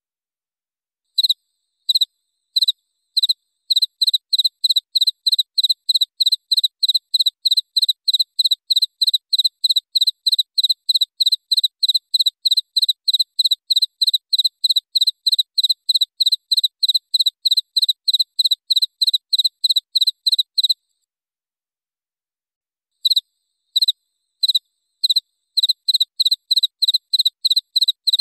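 Cricket chirping in clear, evenly spaced, high chirps with nothing else behind it. It starts with a few spaced-out chirps that quicken to a steady run of about three a second. The chirping breaks off for about two seconds near the end, then starts again slowly and speeds back up.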